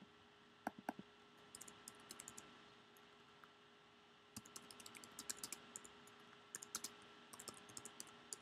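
Faint typing on a computer keyboard in short runs of keystrokes, with a couple of separate clicks about a second in.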